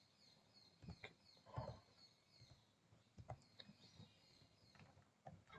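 Near silence: a few faint, scattered computer mouse clicks over quiet room tone.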